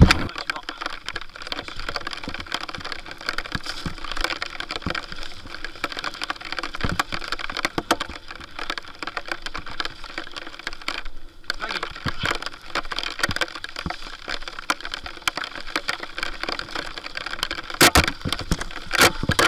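Lapierre Zesty TR 4.9 full-suspension mountain bike rattling and clattering as it is ridden fast down a rough, wet trail, with continual irregular clicks and knocks and a couple of harder impacts near the end.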